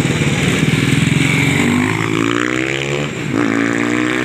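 Small motorcycle engines passing close by, their engine notes rising as they pull away, one and then another about a second later.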